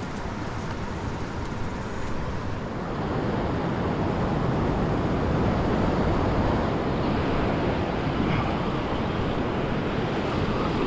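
Wind rushing over the microphone and surf washing over a rocky shore platform, a steady rush that grows a little louder about three seconds in.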